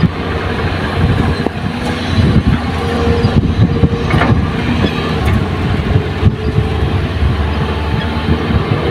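Kobelco SK200 hydraulic excavator's diesel engine running steadily under load as the machine digs, swings and lifts a bucket of soil over a dump truck, with a steady drone and a few sharp knocks.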